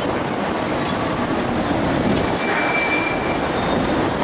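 Hong Kong double-decker tram running along its street track, heard from on board: a steady rumble of wheels on rail mixed with wind noise. A faint, brief high-pitched squeal comes in about two and a half seconds in.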